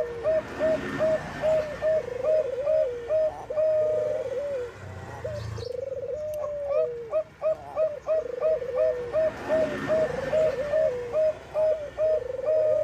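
Zebra dove (Bangkok-bred perkutut) song: quick runs of short coos, about four a second, each phrase ending in a longer drawn note that falls away. The phrase comes twice.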